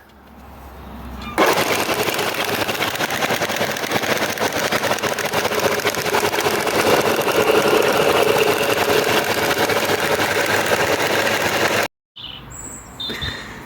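Clarke CS6-9C bench belt and disc sander running with a freshly fitted belt: a loud, steady whirr that starts suddenly about a second and a half in and stops abruptly near the end.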